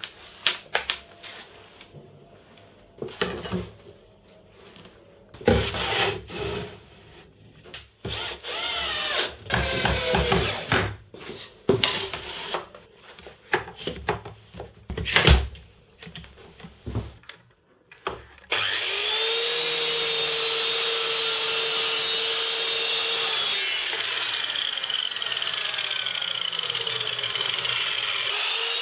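Knocks, clicks and short squeaks of wood and tools being handled. About two-thirds of the way through, a mitre saw's motor starts suddenly and runs steadily with a high whine. A few seconds later the whine drops in pitch while the loud saw noise carries on.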